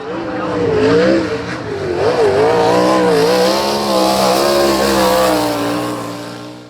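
Sprint car's 360 V8 engine running on a dirt track, its pitch rising and falling as the throttle comes on and off, fading near the end.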